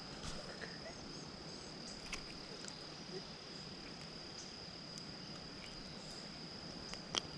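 Insects trilling steadily at one high pitch, faint, with a few small ticks and one sharper click near the end.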